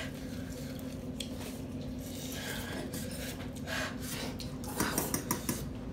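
Eating sounds at a table: forks clicking and scraping against noodle bowls while spicy noodles are eaten, with a cluster of sharp clicks about five seconds in.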